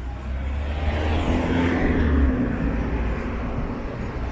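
A car passing along the street, its engine and tyre noise swelling to a peak about two seconds in and then fading.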